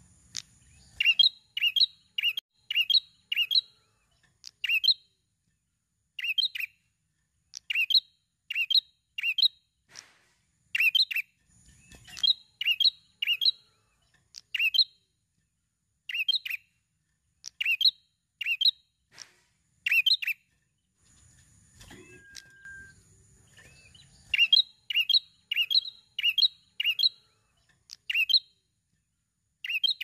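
Ashy tailorbird (prenjak) calling: loud, sharp chirping notes about two a second, in runs of several notes with short pauses between the runs.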